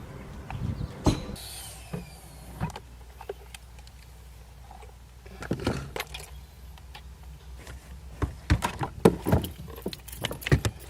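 A string of sharp clicks and knocks, thickest near the end, over a low steady hum.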